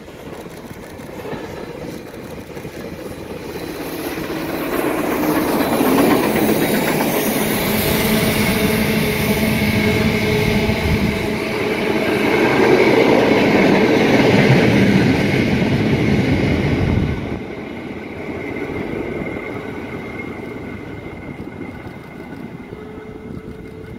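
Queensland Railways C17 class steam locomotive and its train of carriages passing close by on the rails. The sound builds as the train approaches and is loudest for about ten seconds while the carriages roll past. It drops suddenly about two-thirds of the way through, then fades as the train moves away.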